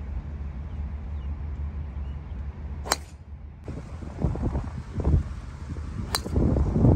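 Two sharp cracks of a driver striking a golf ball off the tee, about three seconds apart, over a low rumble of wind on the microphone that turns gusty in the second half.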